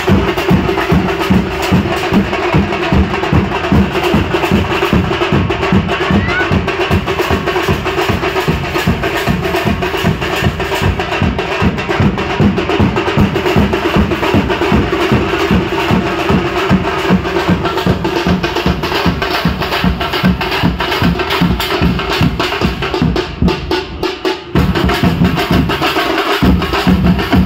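A group of drums beaten with sticks, large metal-shelled bass drums and smaller drums together, playing a fast, dense, steady rhythm. The beat briefly thins out and drops in level about four-fifths of the way through, then picks up again.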